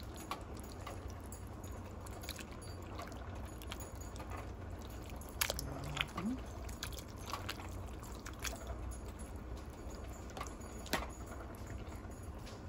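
A spoon stirring thick tomato-sauce pasta in a pot: wet squelching with a few sharp clicks of the spoon against the pot, over a steady low hum.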